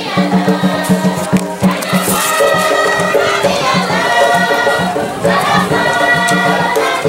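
A choir of voices singing a church song in phrases, with rattles or shakers keeping a quick, steady beat underneath.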